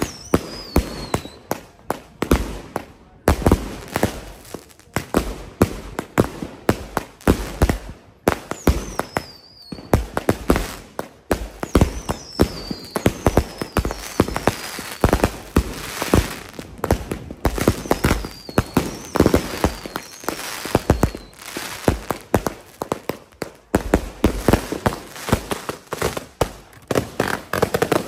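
Consumer aerial firework cakes firing in rapid succession: a dense, steady run of launch thumps, bangs and crackling breaks. Several times, high whistles fall in pitch over the bangs.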